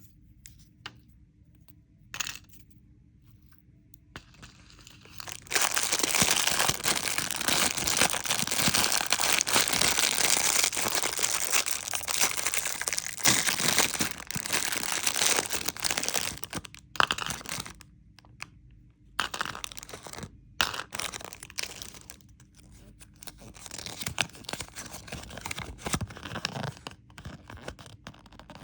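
Candy wrapper being crinkled and torn open: a few light clicks, then a dense, loud crinkling rustle from about five seconds in that lasts around ten seconds, then scattered shorter crinkles and handling clicks.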